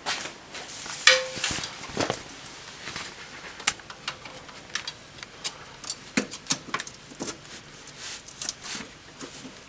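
Scattered metal clinks and knocks of an oil filter wrench being handled and fitted onto a stuck oil filter, the loudest knock about a second in.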